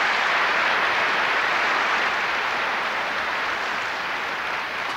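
Audience applauding steadily, easing off a little toward the end.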